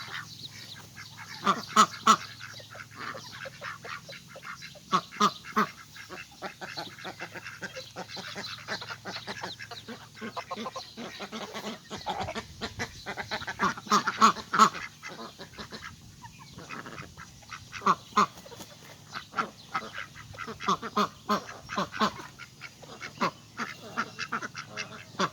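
Domestic ducks quacking over and over in short calls, loudest a couple of seconds in and again about fourteen seconds in.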